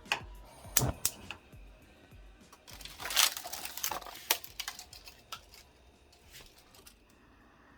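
Kitchen handling noises: a scatter of light clicks and clatters from utensils and cookware, with a brief louder rustle about three seconds in.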